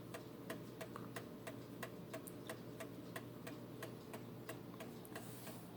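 Seth Thomas Adamantine black mantel clock ticking, faint, quick and even, from its recoil escapement. It is running on a replacement pendulum and keeping a steady beat.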